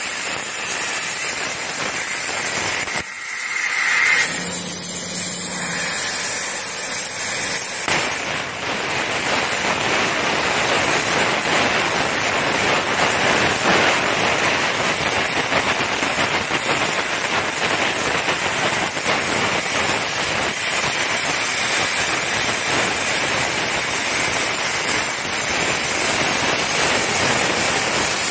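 Plasma arc of a CNC plasma cutter cutting steel plate: a loud, steady hiss with crackling. It dips briefly about three seconds in, then carries on.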